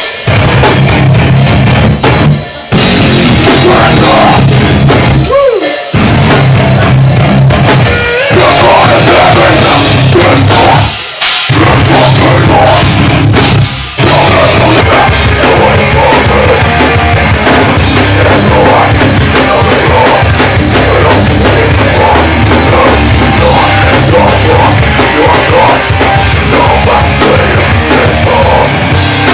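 A heavy rock band plays live and loud on drums, bass and guitars. The playing stops short about five times in the first half, breaking for a split second each time, then runs on without a break.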